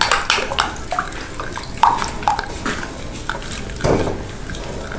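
Coconut powder being mixed into milk in a glass bowl to keep lumps from forming: liquid swishing with irregular light clinks against the glass, and a louder swish about four seconds in.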